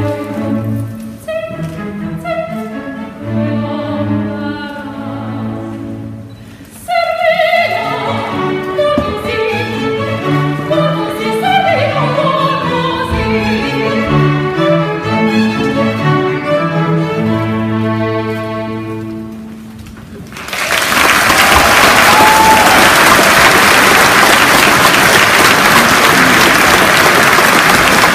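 A string orchestra plays alone, then a woman sings an operatic passage over it, coming in on a high note about seven seconds in. The music ends about twenty seconds in and loud audience applause follows.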